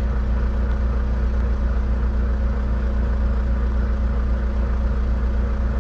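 Volvo semi-truck's diesel engine idling steadily, heard from inside the cab with the truck standing still.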